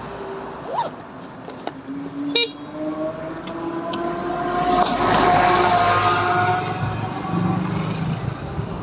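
Road traffic: a motor vehicle passes close by, loudest about five or six seconds in, over a steady whine that rises slightly in pitch. A few short clicks and a brief toot-like sound come about two seconds in.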